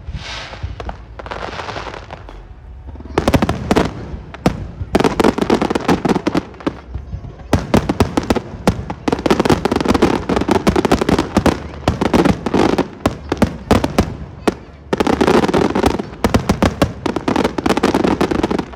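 Fireworks display: aerial shells and crackle effects bursting, with a hissing rush near the start, then dense rapid crackling and bangs in near-continuous volleys from about three seconds in.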